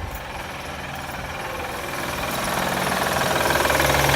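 2007 Honda Pilot's 3.5 V6 engine running with a rattle that grows steadily louder. The rattle comes from a worn-out timing belt tensioner that has left the timing belt very loose.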